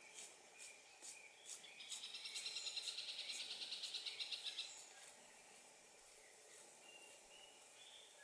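Faint wild animal calls: scattered short high chirps, then a rapid high trill of about ten pulses a second, beginning about two seconds in and lasting nearly three seconds.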